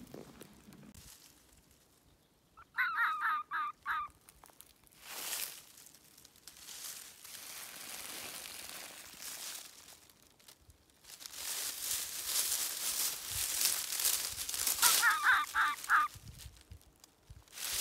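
A young red fox kit calling twice, each call a quick run of about six short, pitched notes lasting just over a second, with dry leaves rustling in between.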